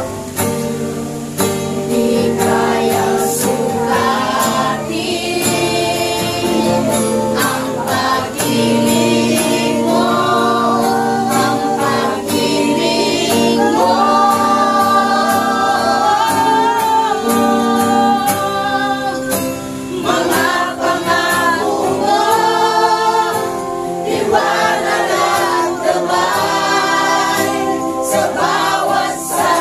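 Congregation singing a Tagalog worship song together over sustained accompaniment chords.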